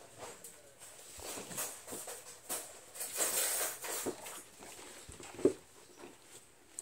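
Rustling and scuffing as a Bernese Mountain Dog puppy rolls and paws on a vinyl floor among kittens, busiest in the middle, with a brief sharp sound about five seconds in.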